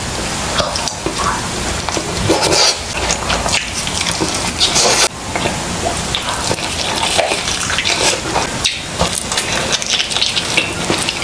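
Close-miked eating: biting into and chewing grilled chicken, a run of short crackles and mouth smacks.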